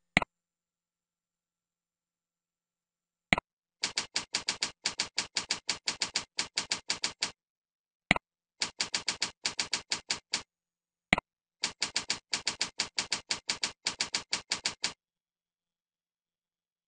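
Computer mouse clicks and keyboard typing. A single click comes at the start. About three seconds in, a second click is followed by a run of quick, even keystrokes, about six a second. Two more click-then-typing runs follow, the last one ending a couple of seconds before the end.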